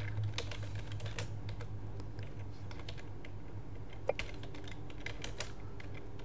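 Computer keyboard keys clicking as a terminal command is typed: a few separate keystrokes at first, then a quicker run of taps from about four seconds in, over a low steady hum.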